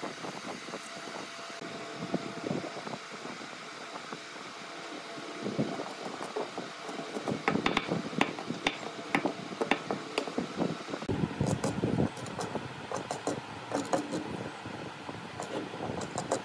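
Hand tools handled on pine wood: pencil scratching and a steel square tapping, then a wheel marking gauge being set and run along the block. A run of sharp clicks and knocks grows louder and busier in the second half.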